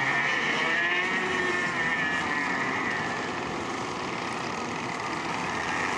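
Racing go-kart engines running hard as karts pass close together, several high engine notes wavering up and down with the throttle. Loudest in the first couple of seconds, then easing slightly as they move away.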